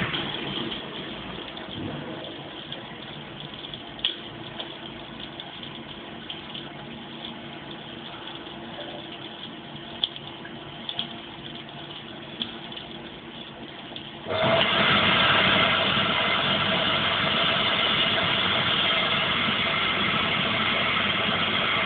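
Public toilet's all-in-one washbasin unit: a low steady trickle with a few small clicks. About fourteen seconds in, a much louder steady rushing noise cuts in suddenly and keeps going.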